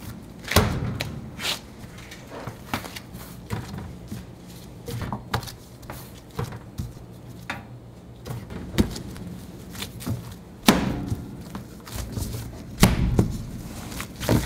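Kitchen work sounds during burger preparation: irregular knocks, thuds and clatter of utensils and containers on work surfaces, with a low steady hum underneath. The loudest knocks come about half a second in, at about eleven seconds and at about thirteen seconds.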